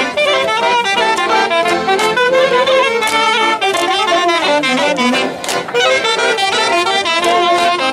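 Fast folk dance music: a quick, busy melody of many short notes over a steady beat.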